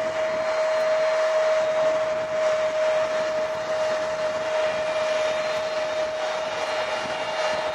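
Airbus A310's twin GE CF6-80C2 turbofan engines at taxi power: a steady whine over a rushing hiss.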